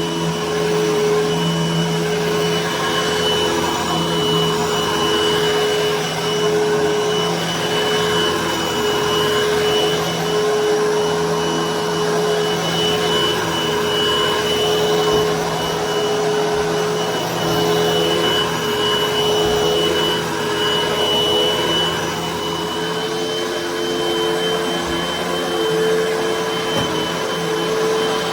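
Hoover vacuum cleaner running steadily on carpet, a continuous motor hum with a high whine over rushing air; about three quarters of the way through its pitch shifts slightly higher.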